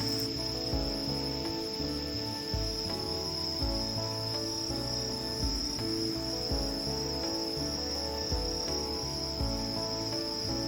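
Crickets or similar insects trilling steadily in one high, unbroken tone, over background music with a steady beat.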